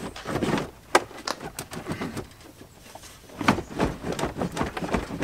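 Plastic dashboard assembly of a Chevrolet Silverado/GMC Sierra pickup clicking, creaking and knocking as it is rocked back and forth by hand, with a sharp click about a second in and a denser run of knocks near the end. The dash is loose but still held in a bind.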